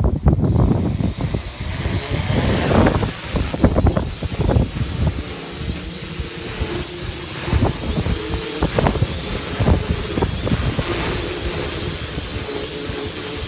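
Quadcopter's electric motors and propellers spin up to lift off, then a buzzing hum that wavers in pitch as it hovers, with heavy wind buffeting the microphone.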